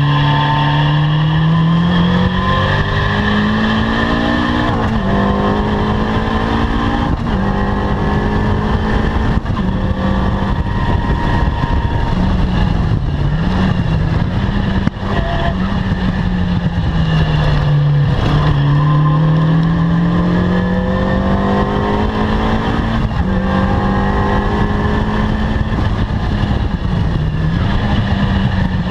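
Caterham R300 sports car engine under hard load. Its note rises in pitch and drops sharply at upshifts about five and seven seconds in. It then holds and wavers with throttle, dips low around eighteen seconds in, and climbs again.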